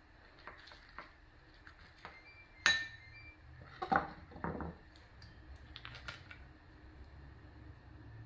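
Ceramic dishes and a spoon clinking on a table: one sharp clink that rings on briefly about two and a half seconds in, then a few softer clatters about a second later, with light taps before and after.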